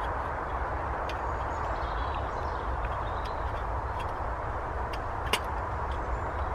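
A few light metal clicks as steel cross-bar pot supports are fitted onto a small folding steel stove, the sharpest about five seconds in, over a steady low rumble and hiss.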